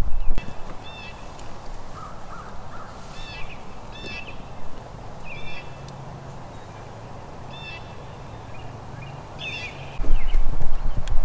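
Wild birds calling: short, sharp, high notes repeated every second or two over a faint low hum. A loud low rumble fills the very start and comes back about ten seconds in.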